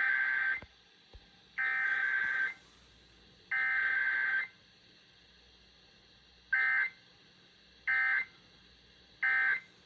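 Emergency Alert System SAME data bursts, a shrill two-tone digital warble. Three header bursts of about a second each are followed by three short end-of-message bursts, with no attention tone or voice message between them, as when a test is sent.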